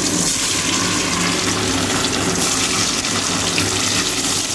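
Paneer cubes sizzling steadily as they fry in hot oil in a kadai.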